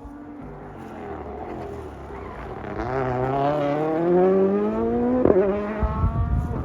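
A rally car's turbocharged four-cylinder engine accelerating hard as it approaches, its pitch rising for a couple of seconds. About five seconds in there is a sharp crack as it shifts up, then a steadier, lower engine note with a burst of low popping near the end.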